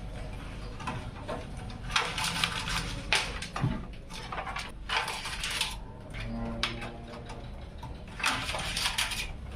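Hands handling computer parts: four short rustling or scraping bursts with scattered light clicks over a faint low hum.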